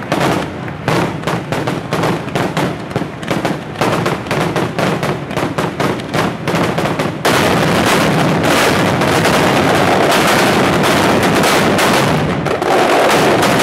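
Mascletà: strings of firecrackers go off in quick succession, a rapid barrage of sharp bangs. About seven seconds in, the bangs merge into one continuous dense barrage that lasts until near the end.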